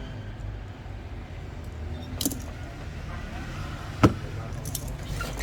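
Small metal objects clinking and clicking, with two sharper clicks about two and four seconds in and a few faint ticks near the end, over a steady low hum.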